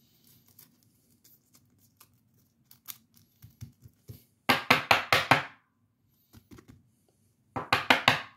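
A trading card and a rigid plastic toploader being handled on a tabletop: scattered light clicks, then two quick runs of five or six sharp taps or scrapes, about halfway through and near the end.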